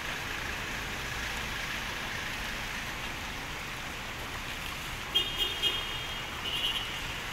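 Steady hiss of water and road traffic on a flooded street. From about five seconds in, several short high-pitched beeps sound.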